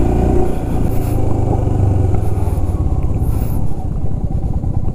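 Royal Enfield Himalayan's single-cylinder engine running steadily as the motorcycle is ridden slowly along a dirt track.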